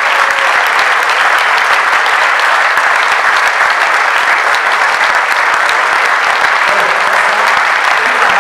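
Audience applauding: a steady wash of many hands clapping.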